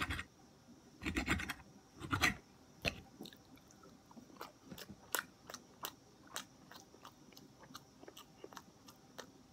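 A metal fork scrapes on a plate twice in the first couple of seconds. Then a person chews a mouthful of food, with a string of small wet mouth clicks.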